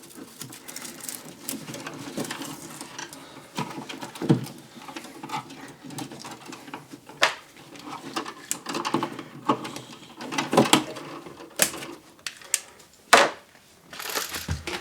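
Irregular small clicks, taps and rustles of hands handling electrical wire and a GFCI outlet, with a few sharper knocks scattered through.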